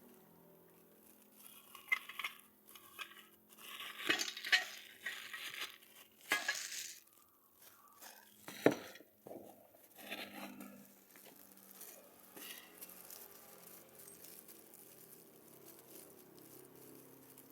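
Scattered handling sounds: rustling and crinkling with clicks and knocks of small hard objects, the sharpest click about eight and a half seconds in, quieter over the last few seconds.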